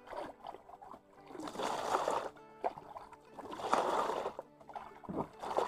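Water sloshing and splashing in a small boat's hull in three swells about two seconds apart, with background music.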